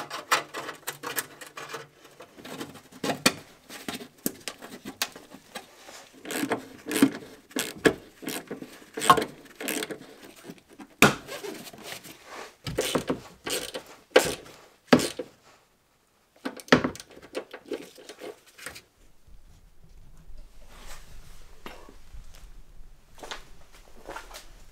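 Hard plastic underbody panel of a Mercedes W212 being handled and pressed back into place: irregular clicks, knocks and scraping of plastic and fasteners. In the last few seconds this gives way to a faint low hum with a few light clicks.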